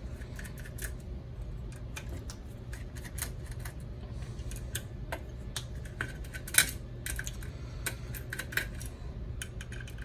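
Scattered small metallic clicks and taps as metal modules and fittings inside a microwave down converter's chassis are handled, the sharpest about six and a half seconds in, over a steady low hum.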